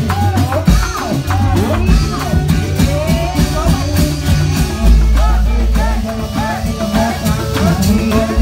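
Live accompaniment music for a Reog Indramayu masked dance: a steady drum beat under a sliding, ornamented melody line. About five seconds in, a deep low boom holds for about a second.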